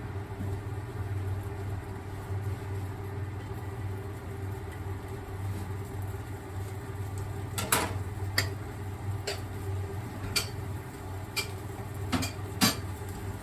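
Steady low mechanical hum, such as a fan motor running. About halfway through come about seven sharp clicks or taps, spaced roughly a second apart.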